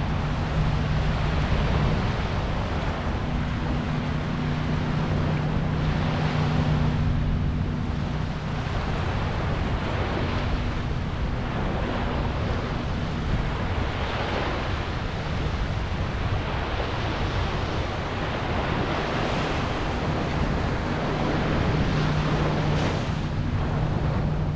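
Small ocean waves washing onto the shore, swelling every few seconds, over wind rumbling on the microphone and a steady low hum.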